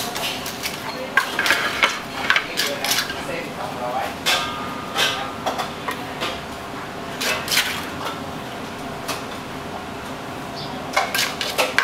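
Kitchen clatter: metal utensils and cookware knocking and clinking against pots and dishes in irregular strokes.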